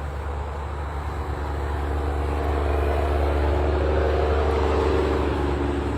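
A passing motor vehicle's engine, growing louder to a peak about four seconds in and then fading away.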